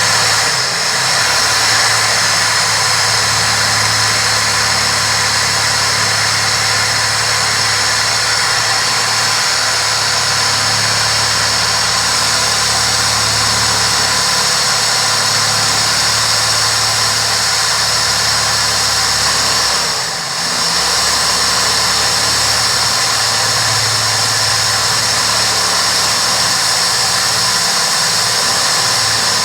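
Power drill running under load as it bores a 1/2-inch hole, a steady motor whine with grinding noise that starts abruptly and eases off briefly about two-thirds of the way through.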